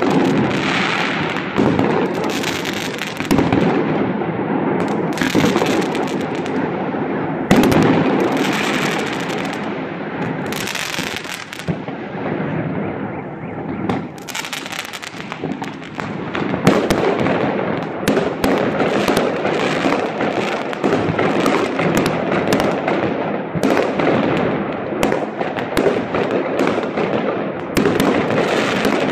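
Many aerial fireworks going off at once: a dense, continuous barrage of bangs and crackling, with a few louder booms standing out, one about seven and a half seconds in and another about sixteen and a half seconds in.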